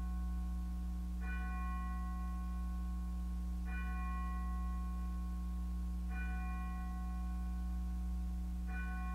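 A church bell tolling slowly: four strikes about two and a half seconds apart, each ringing on until the next, over a steady low hum.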